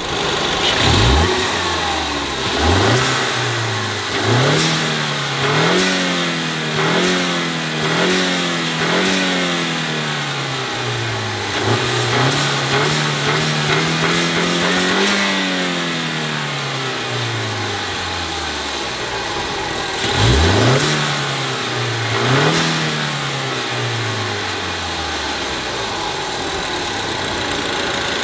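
The 2016 Ford Mustang EcoBoost's 2.3-litre turbocharged inline-four is revved while parked: a run of quick blips, a longer rise and fall around the middle, and two more sharp blips about twenty seconds in, before it settles back to a steady idle.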